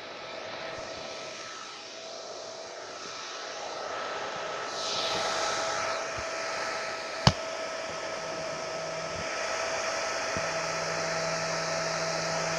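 Hair dryer running steadily: a blowing rush with a steady motor whine, the airflow shifting a little about five seconds in. A single sharp click comes a little past the middle.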